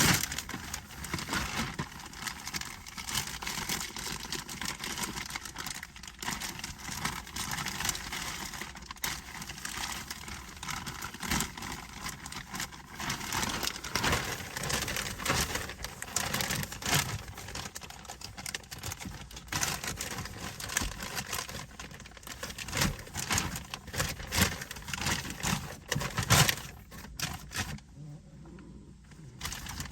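Heavy-duty plastic garbage bag rustling and crinkling as it is handled and worked down over a car's shift lever, with many small crackles and clicks, dropping away briefly near the end.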